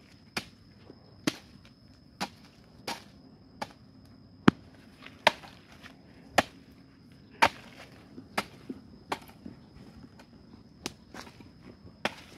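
A digging tool striking and breaking hard termite-mound earth in about a dozen sharp, separate blows, roughly one a second and irregular. The loudest blow comes about halfway through.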